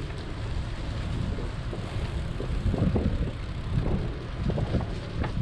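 Wind buffeting the microphone of a camera on a moving bicycle: a steady low rumble with irregular gusts.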